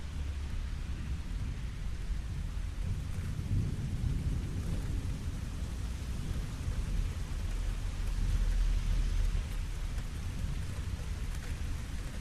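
Steady rain falling on a lake, with low rolling thunder that swells about four seconds in and again, more strongly, around eight to nine seconds in.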